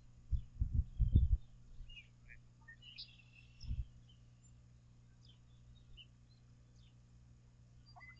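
Birds chirping, short high calls scattered throughout, over a steady low hum. A few low thumps in the first second and a half and one near four seconds in are the loudest sounds.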